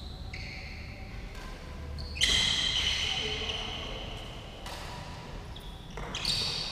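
Badminton rally: rackets strike the shuttlecock about five times, one to two seconds apart, each a sharp hit that rings on in the hall. The loudest hit comes about two seconds in.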